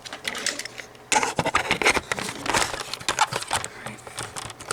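Irregular clicks, knocks, scrapes and rustles of objects being handled and moved about, starting about a second in.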